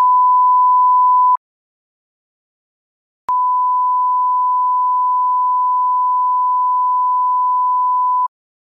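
A steady electronic beep, one pure tone at a single pitch, that cuts off about a second and a half in. After about two seconds of silence a sharp click comes and the same beep starts again, holding for about five seconds before it stops abruptly.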